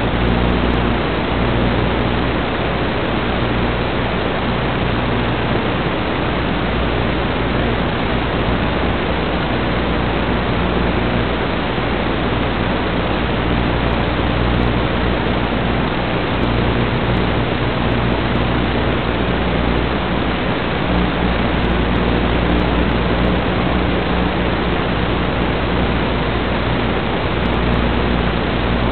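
Steady static hiss with a low hum underneath from an analog FPV video link's audio channel, recorded along with the drone's camera feed.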